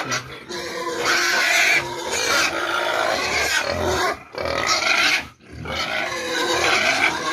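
A group of hybrid fattening pigs squealing and grunting almost without pause, with two short breaks about four and five and a half seconds in: hungry pigs calling for feed.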